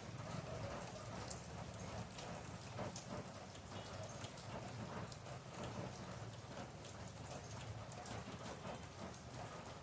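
Steady rain falling, with many separate drop hits heard as sharp irregular ticks over an even wash of rain noise and a low rumble.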